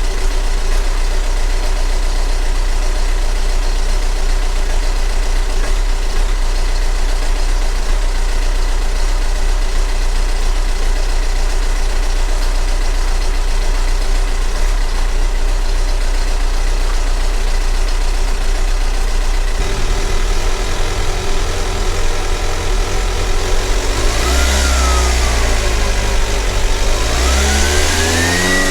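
Volkswagen ALH 1.9-litre four-cylinder turbodiesel idling steadily. About 20 seconds in its note deepens, then it is revved twice: a short rev, then a slower one that climbs and peaks near the end.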